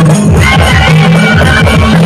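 Loud live procession band music: fast, heavy drum beats under a steady bass line, with a melody line that slides up and down in pitch.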